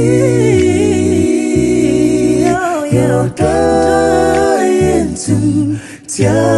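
Background music: a sung vocal with long held notes over a sustained bass.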